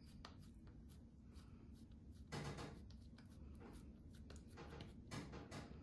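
Faint soft squishing and rubbing of oiled hands pressing a ball of mashed potato dough flat between the palms, with a few light clicks and pats.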